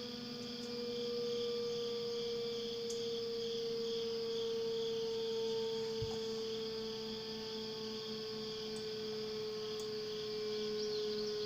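Klaxon CS8 siren sounding the all-clear signal: one steady, unbroken tone held throughout, its pitch sinking very slightly.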